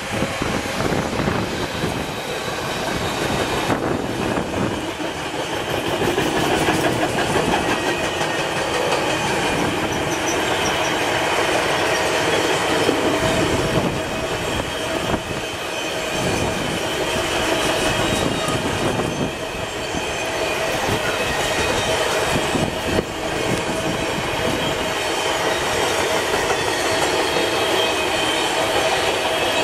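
Freight train of container and car-carrier wagons rolling past at reduced speed, wheels running steadily on the rails, with steady high ringing tones over the rolling noise.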